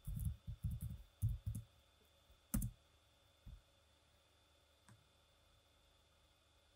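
Typing on a computer keyboard: a quick run of soft key taps, then one sharper key click about two and a half seconds in, followed by two faint taps.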